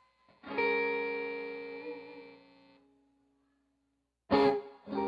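Electric guitar chord struck and left to ring out, fading away over a couple of seconds. After a short silence, a sharp loud strike and another chord begin near the end.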